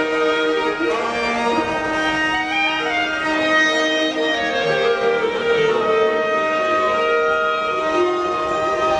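Violins playing a melody in long held notes, with other instruments sounding beneath them.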